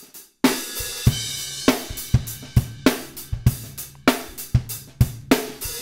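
Recorded drum kit playing a steady beat of kick, snare, hi-hat and cymbals, compressed by the Waves SSL E-Channel plugin. It starts about half a second in, with sharp hits roughly twice a second. The compression almost emphasizes the punch of the drums.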